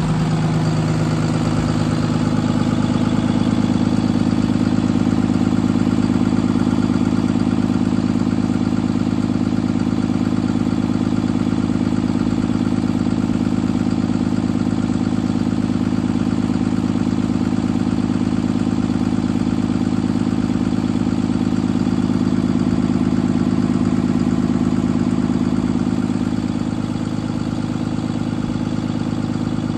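Cummins diesel engine of a Freightliner M2 truck idling steadily with the hood open, getting a little quieter near the end.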